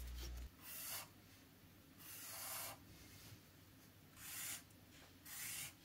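Felt-tip marker drawn across paper in four short strokes, each a soft scratchy hiss about half a second long.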